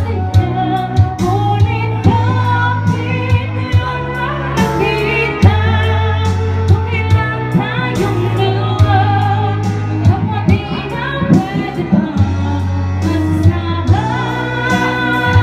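Karaoke: a woman singing a ballad into a microphone, her voice amplified through a loudspeaker over a backing track with a steady bass and beat.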